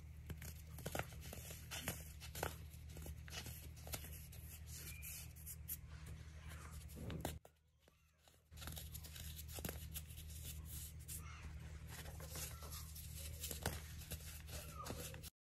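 Fingers squeezing and crushing a dome of molded baking soda, a dense run of dry crunches and crackles as it crumbles to powder, over a steady low hum. The sound drops out for about a second midway.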